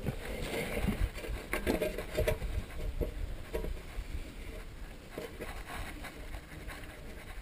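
Steel chain of a wheel traction bracelet clinking and rattling in a few short clusters of clicks as it is handled and threaded around a muddy tyre, over a low rumble.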